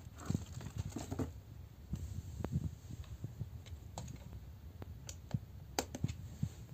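Scattered light clicks and knocks of an electric paint sprayer's plastic housing being handled and set down, with a sharper click near the end.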